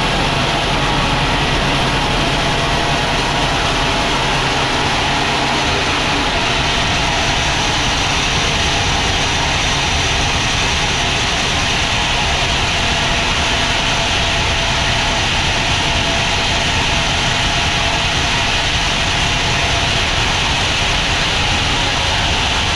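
Sawmill machinery running steadily while cutting a log, a loud continuous noise with a low engine hum that fades out about six seconds in.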